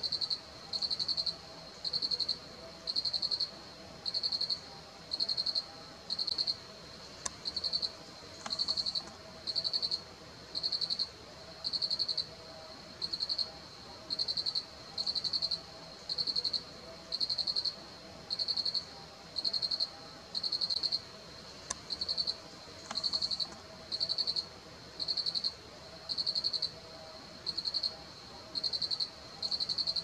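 An insect calling in a steady rhythm: a high-pitched buzzy pulse about once a second, each lasting about half a second, over a faint steady lower hum.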